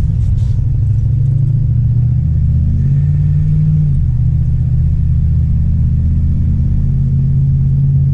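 A 1999 Dodge pickup truck driving, heard from inside the cab: a steady low engine and road rumble, the engine pitch rising briefly about three seconds in and settling back a second later.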